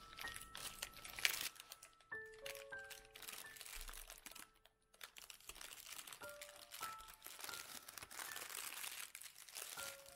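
Baking parchment crinkling and rustling as hands lift a loaf cake out of its tin by the paper and fold the paper back. Soft background music of sparse held notes plays underneath.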